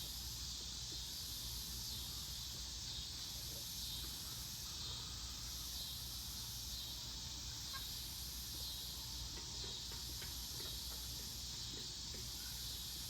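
A steady, faint chorus of insects calling outdoors at dusk: an even high-pitched hiss that keeps on without a break.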